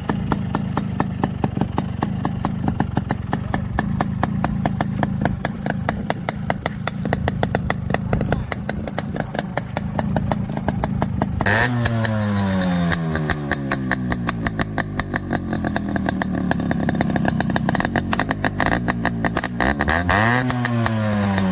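Yamaha RX 100's two-stroke single-cylinder engine running with a rapid, even exhaust beat. About halfway through it revs up suddenly, then the pitch falls off slowly. Near the end there is one more quick rise and fall in revs.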